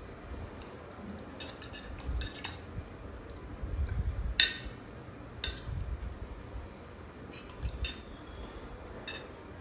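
Metal forks clinking and scraping against metal bowls of noodles, a scatter of short sharp clinks with one louder ringing clink about four seconds in.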